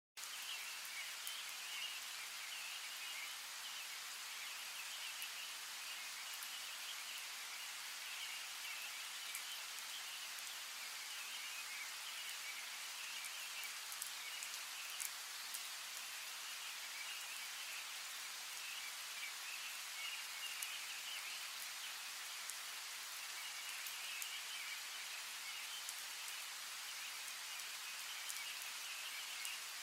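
Steady rain: an even hiss with scattered sharp drop taps, over a high chirring chorus of frogs or insects that swells and fades every few seconds.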